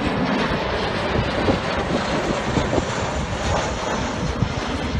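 Boeing 737-based E-7A Wedgetail's two turbofan jet engines passing overhead: a steady rushing jet noise.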